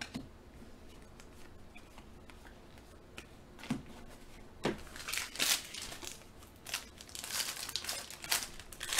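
Foil wrapper of a Panini Contenders Draft football card pack crinkling and tearing as it is ripped open, in a string of short crackles through the second half after a quiet start.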